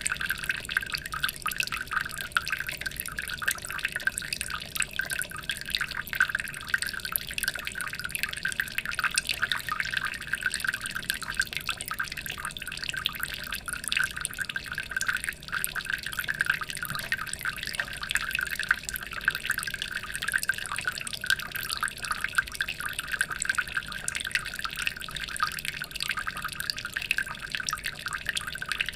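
Water trickling and splashing steadily, a dense patter of small drips and splashes.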